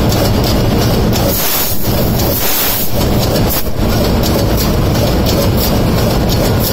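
A running MAN B&W ME two-stroke marine main engine heard close up at the cylinder tops: a loud, steady engine-room rumble with a fast, regular clatter running through it. The low rumble dips for a moment about two seconds in while a hiss stands out.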